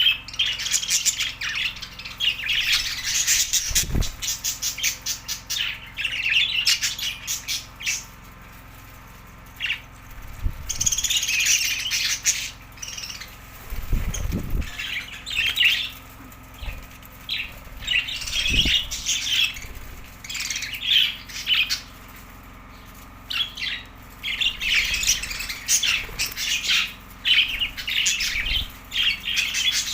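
Budgerigars chirping and squawking in quick chattering bursts, with short pauses between bursts and a few dull thumps.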